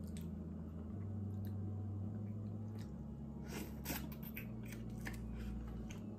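Close-miked eating of cooked blue crab claws: scattered sharp clicks and small crunches of shell being cracked and picked, with chewing of the claw meat.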